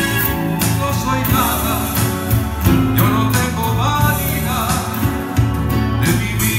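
Two acoustic guitars strumming and picking a bolero while a man sings into a microphone, his sung phrases coming and going over the guitars.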